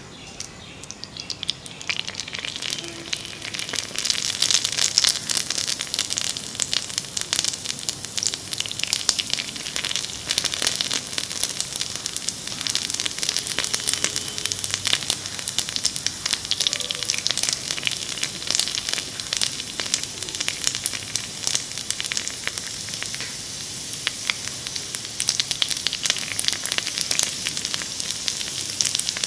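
Jalebi batter sizzling and crackling as it deep-fries in hot oil in a miniature wok. The sizzle builds up about two seconds in as more batter is piped into the oil, then keeps going as a dense, even crackle.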